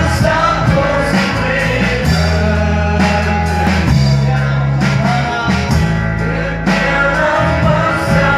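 A live band and singers performing a Garo worship song: voices singing over electric guitar, steady low bass notes and drum beats.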